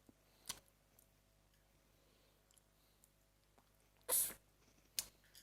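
A person eating blue crab salad: quiet stretches of eating with a soft click or two and a short, louder noisy burst about four seconds in.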